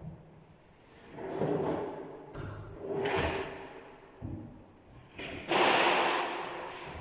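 Three rushing, sliding noises that swell and fade, each about a second long and roughly two seconds apart, with a few short knocks between them.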